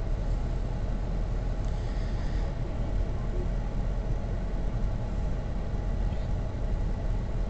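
Steady low rumble of a car's cabin, engine and road noise with no distinct events.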